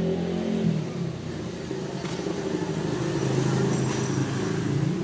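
A motor engine running with a steady hum.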